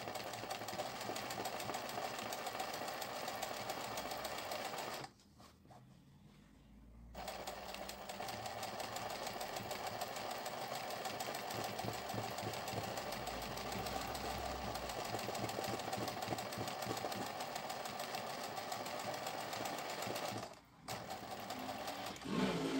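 Singer 20U semi-industrial zigzag sewing machine running at a steady speed, stitching a felt appliqué. It stops about five seconds in for roughly two seconds, then runs again, with another brief pause near the end.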